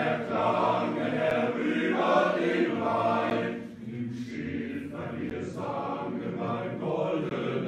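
A men's choir singing in a hall, with a brief dip between phrases about halfway through.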